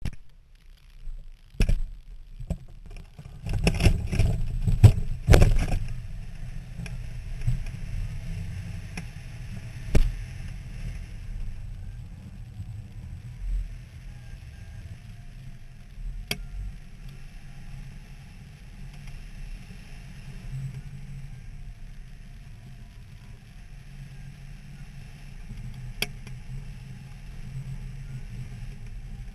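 Wind rushing over a camera microphone on a hang glider, a steady low rumble through the flight. Near the start there are a few seconds of loud buffeting and knocks around the launch, and a few faint clicks later on.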